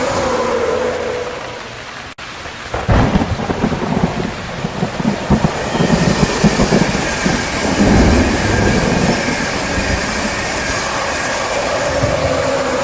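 Steady heavy rain hissing, with a long roll of thunder rumbling in about three seconds in and dying away after about nine seconds.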